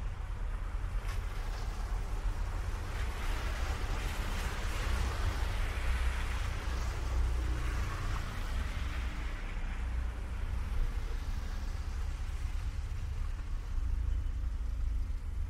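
Street traffic ambience: a steady low rumble of engines, with a vehicle passing whose tyre noise swells over several seconds and fades away.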